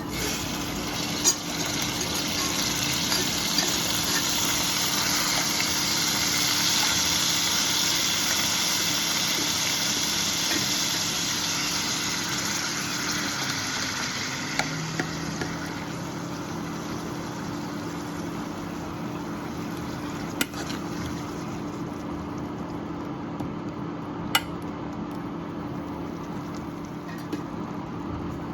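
Food cooking in a pan with a steady sizzling hiss that swells and then eases off, over a low steady hum. There are a few sharp clicks of a utensil against the pan.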